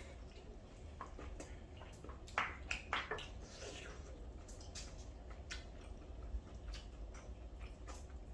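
Eating sounds: scattered light clicks of spoons against dishes and the soft chewing and squishing of curry rice, with a few louder sounds close together a little over two seconds in.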